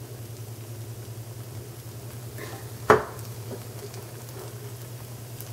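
Rice and egg sizzling quietly in a nonstick frying pan while a spatula stirs it, over a steady low hum. A single sharp knock comes about three seconds in.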